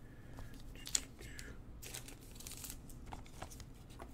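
Light crinkling and rustling of plastic and foil packaging, with a sharp click about a second in and a few small ticks later, as trading cards and clear plastic toploaders are handled.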